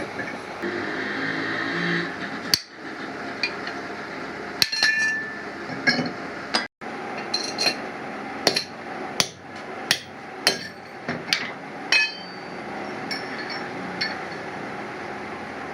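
Hammer striking metal: irregular sharp blows, each with a short metallic ring.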